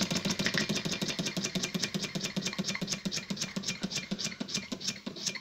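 Scratch-built model steam engine running with a fast, even chuff of exhaust beats, about ten a second, slowing a little near the end as it runs out of steam.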